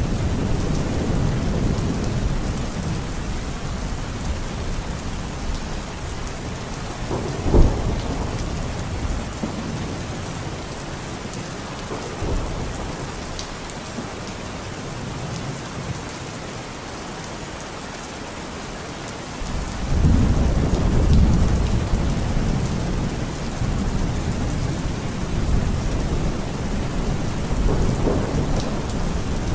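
Heavy rain pouring steadily with thunder. A low rumble is heard at first, then a sharp thunderclap about seven and a half seconds in, the loudest moment. After a quieter spell, a long, deep roll of thunder begins about twenty seconds in.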